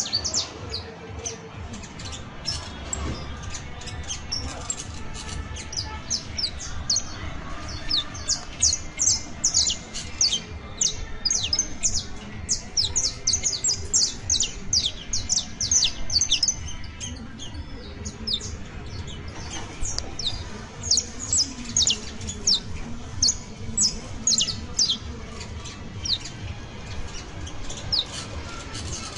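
Saffron finch singing: rapid runs of sharp, high, downward-slurred chirps with short pauses between runs, over a low steady background rumble.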